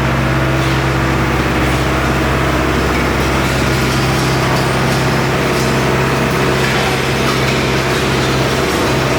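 Hyundai R85A Smart crawler excavator's diesel engine running steadily, with a constant low hum.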